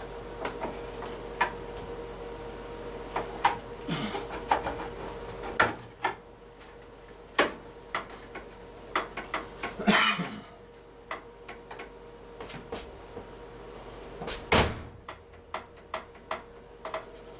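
Scattered clicks, taps and knocks of washer parts being handled, with a scraping rattle about ten seconds in and a louder knock about fifteen seconds in, over a steady hum.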